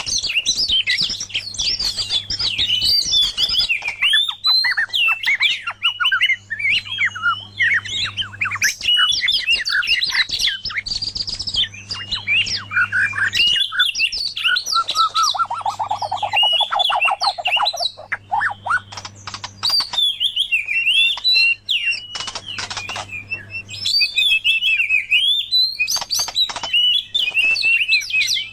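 Loud, continuous and rapidly varied song of white-rumped shama and oriental magpie-robin: fast whistles, trills and chattering notes follow one another without pause. About halfway through comes a run of quick notes falling in pitch.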